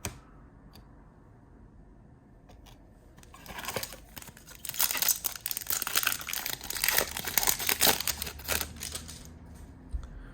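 A trading-card pack's foil wrapper crinkling as it is torn open, starting about three seconds in and lasting about five seconds, after a single sharp click at the start.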